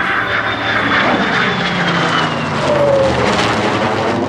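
An F-22 Raptor jet and a P-51D Mustang propeller fighter flying a formation pass. A high whine drops in pitch as they go by, and the noise peaks about three seconds in.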